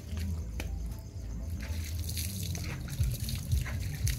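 Dogs eating soup from metal bowls: wet lapping and slurping, with chewing and clicks of tongues and teeth against the bowls, busier in the second half, over a low hum.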